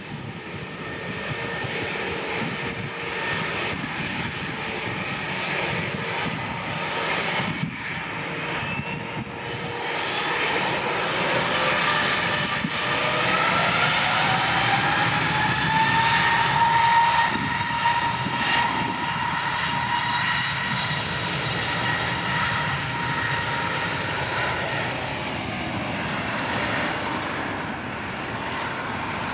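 Airbus A321neo jet engines spooling up to takeoff power, a rising whine that builds to its loudest about two thirds of the way through and then holds steady over the jet roar.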